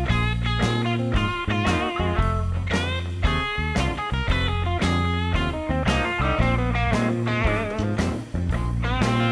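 Background music: a guitar-led rock tune with wavering, bent guitar notes over a steady beat.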